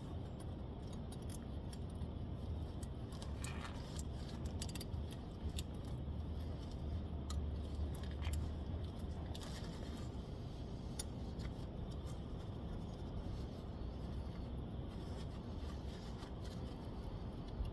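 Scattered light metallic clicks and clinks of hand tools and small metal parts being handled, over a steady low rumble.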